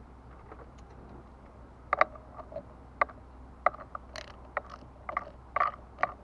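Irregular sharp clicks and clacks of small hard parts handled and snapped together, starting about two seconds in, from a truck turn signal switch being worked on by hand.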